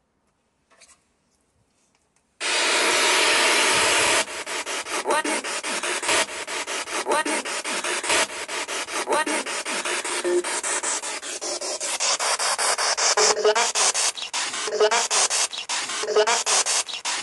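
Ghost-hunting spirit box, a radio sweeping rapidly through stations, switched on after a couple of seconds of near silence: a sudden loud hiss of static, which then turns choppy, broken many times a second as it scans, with short rising snatches of radio sound.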